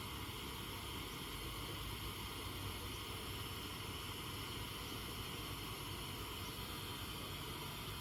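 Pressure kerosene lantern burning with a steady hiss.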